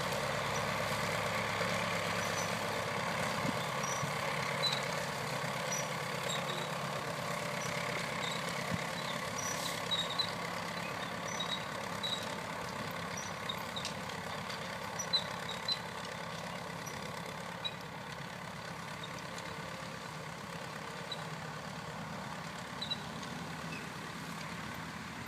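Nuffield 10/60 tractor running steadily while pulling a potato lifter in work, with scattered faint high ticks over the engine noise. It eases off a little in the second half.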